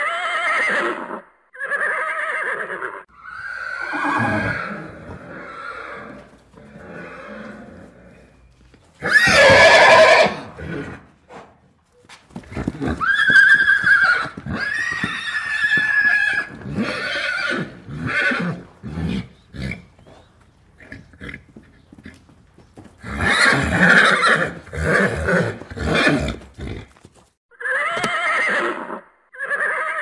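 Horses neighing and whinnying, one call after another with short pauses between. The loudest call comes about nine seconds in.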